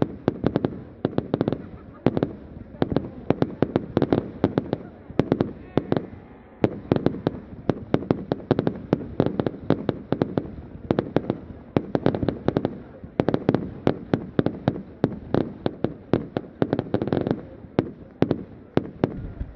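Fireworks going off in rapid succession: a dense, continuous stream of sharp bangs and crackles, several a second.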